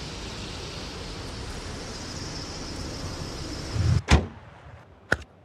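Car hood slammed shut with a loud thump and a sharp knock about four seconds in, over a steady background hiss, with a light click near the end.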